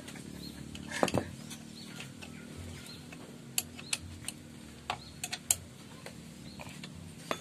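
Sharp metal clicks and knocks from a motorcycle kick-start lever being fitted and worked on its shaft. The loudest come about a second in, followed by a scattering of lighter clicks and one more near the end.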